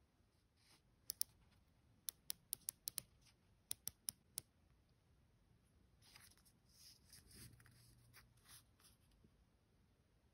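Rotating bezel of a Citizen ADEC quartz dive watch being turned: about a dozen sharp ratchet clicks in quick, irregular groups. Soft rustling follows as the watch is handled in the fingers.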